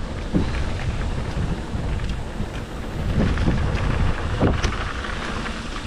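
Mountain bike descending a fast downhill trail: wind buffeting the microphone over a steady rumble of tyres on rocky ground, with a few sharp knocks from bumps.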